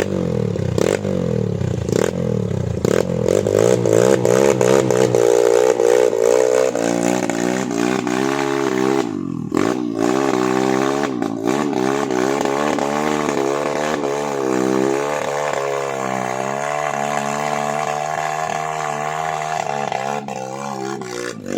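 A vehicle engine revving hard and unevenly, its pitch repeatedly rising and falling as it strains to get through a slippery mud track, with a few knocks and clatters.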